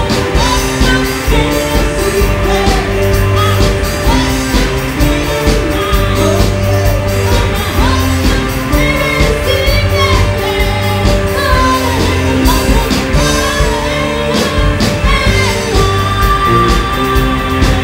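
Live pop band playing: a woman sings lead into a microphone over electric guitar, keyboard and a steady drum beat.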